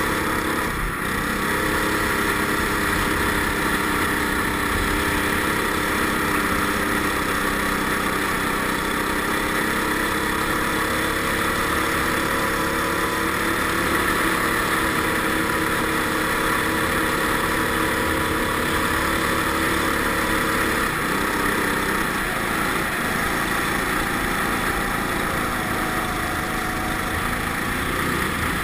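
Go-kart engine running at fairly steady high revs while driving on ice, heard from on board the kart. Its note dips briefly near the start and shifts again about two-thirds of the way through.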